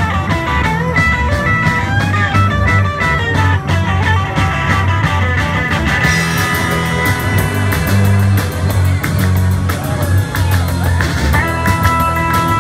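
Live rock band playing: electric guitars, bass, drum kit and keyboard over a steady beat, with the cymbals getting busier about halfway through.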